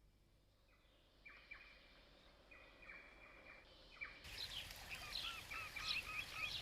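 Birds calling: a few faint, long, level whistled notes, then from about four seconds in a busy run of quick chirps over steady outdoor background noise.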